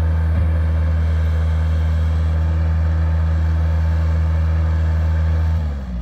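2008 Bobcat S175 skid steer's diesel engine running steadily with a deep, even note, then shut off about five and a half seconds in, its pitch sliding down as it winds to a stop.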